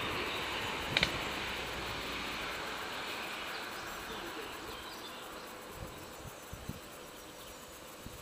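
Steady outdoor background hiss from a nest-camera microphone, slowly fading, with a sharp double click about a second in.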